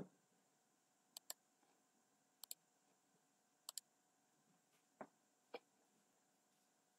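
Faint computer mouse clicks: three quick press-and-release pairs about a second and a quarter apart, then two duller single clicks half a second apart. A low thump right at the start.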